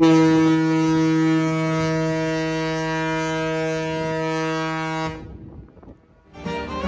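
Ship's horn sounding one long, steady blast of about five seconds, then cutting off. Fiddle music starts near the end.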